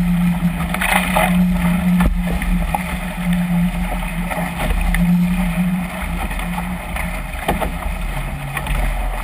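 Water rushing and spraying along the hull of a Chrysler Musketeer catamaran sailing fast through waves, with wind on the microphone. A low hum comes and goes under it, and a few sharp slaps of water hit, one about two seconds in and another near the end.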